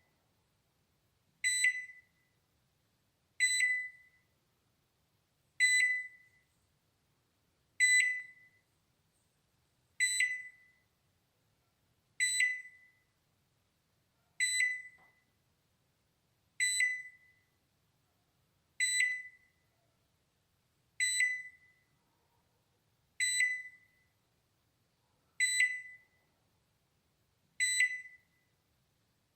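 Balay microwave oven's alarm beeping: a single high beep repeated evenly about every two seconds, each beep short and fading away quickly.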